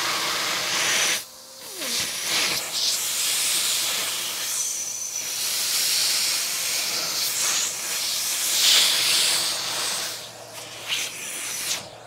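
Compressed air from an air compressor hissing out in uneven bursts, over a steady low hum. The hiss drops out briefly about a second in, swells loudest later on, and cuts off just before the end.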